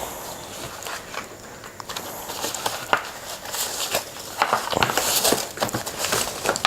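Cardboard box and packaging rustling, with small knocks and scrapes, as a keyboard box is opened and the keyboard pulled out. The crinkly rustling gets busier and louder from about two seconds in.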